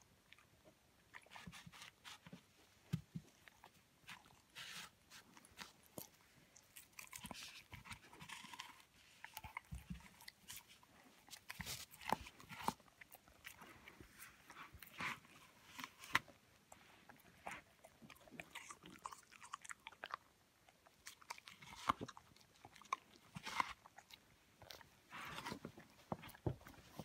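Young Hamilton Stövare dog biting and chewing a piece of raw fruit, with irregular crunches.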